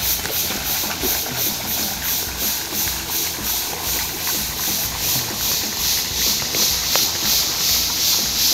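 Paddlewheel pond aerator churning the water beside a pipe pouring water into the pond: a steady rushing splash that pulses about four times a second, over a low motor hum.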